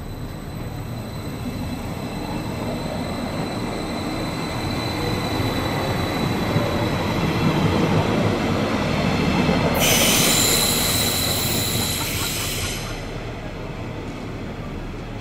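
thurbo Stadler GTW railcar rolling past and away, a rumble that builds and then fades. About ten seconds in, a loud high-pitched squeal of several tones rings for about three seconds and cuts off.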